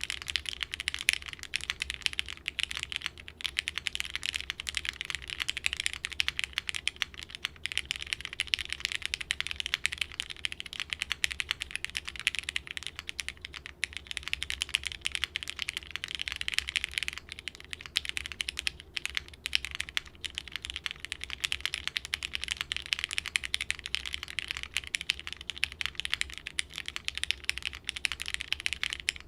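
Continuous fast typing on a plateless, tray-mounted Mekanisk Fjell mechanical keyboard fitted with lubed Cherry Hyperglide switches and GMK keycaps: a dense, unbroken stream of keystroke clacks with no pauses.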